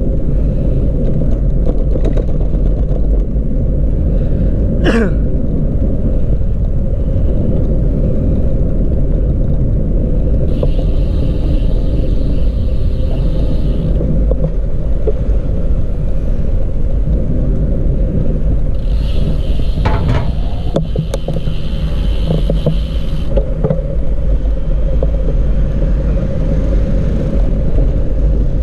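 Wind rumbling on the microphone with road noise while cycling. A higher hiss comes in twice for a few seconds, about a third of the way through and again after two-thirds.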